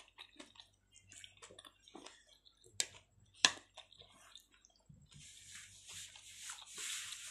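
Close-up eating sounds: small wet mouth clicks of chewing, with two sharp clinks of a metal spoon against a plate about three seconds in. A steady hiss starts about two-thirds of the way through.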